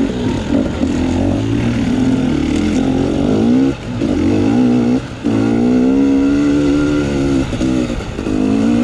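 Dirt bike engine running under changing throttle, its pitch rising and falling, with two brief throttle cuts about four and five seconds in before it revs up again.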